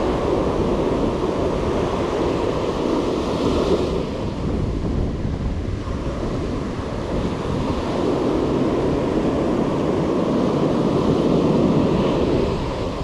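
Ocean surf breaking and washing up the sand, swelling and easing with the waves, with wind rumbling on the microphone.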